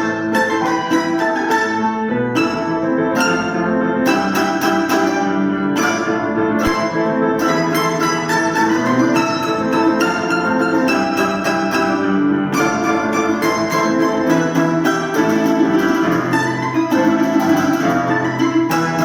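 Instrumental duet on plucked string instruments playing a lively piece, with fast, quickly repeated plucked notes over a lower accompaniment.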